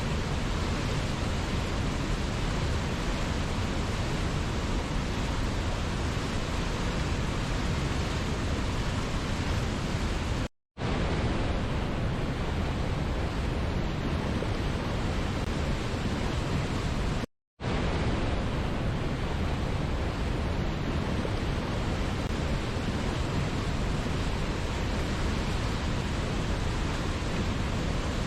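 Steady rushing of a waterfall, an even hiss-like roar of falling water. It cuts out to silence for a fraction of a second twice, about a third and about two thirds of the way through.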